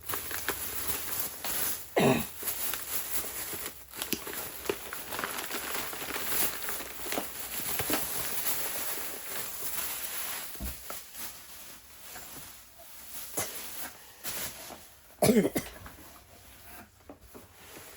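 Foam packing and a doll's parts being handled and pulled out of a box: scattered rustling and light knocks, with two louder sudden sounds, one about two seconds in and one near the end.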